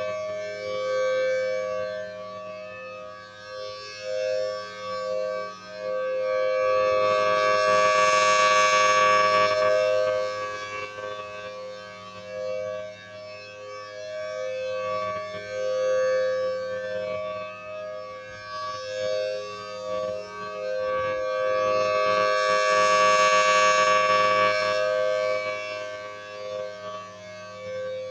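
Federal Signal Thunderbolt 1000T outdoor warning siren sounding at a steady pitch over a low steady hum, swelling louder twice about fourteen seconds apart as its rotating horn sweeps past.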